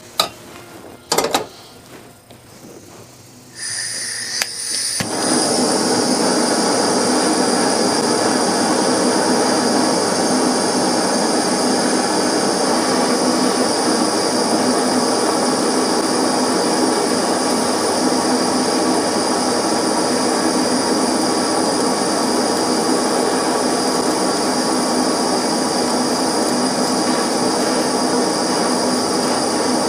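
A few sharp clicks, then about four seconds in a machine starts up and runs steadily and loudly with a constant high whine over a broad rushing noise.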